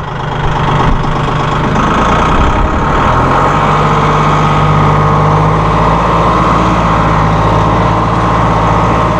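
Massey Ferguson 1740M's three-cylinder 1.7-litre diesel engine running as the tractor drives. Its pitch steps up about three seconds in, then holds steady.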